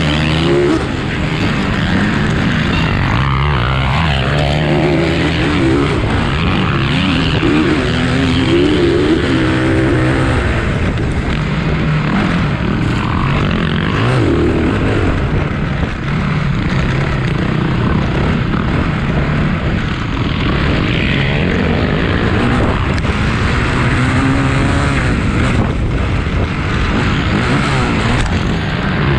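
Several motocross bikes racing, their engines revving up and falling back in overlapping pitches, loud and continuous.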